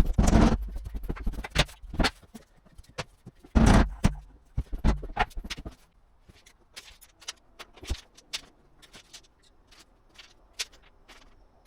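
Irregular knocks, taps and scrapes from laminate flooring boards being handled and fitted, with two louder short scraping bursts in the first four seconds and lighter clicks after that.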